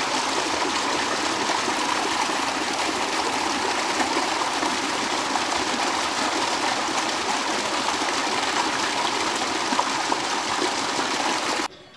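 Water gushing from two pipes and splashing into a concrete tank: a steady rushing splash that cuts off suddenly near the end.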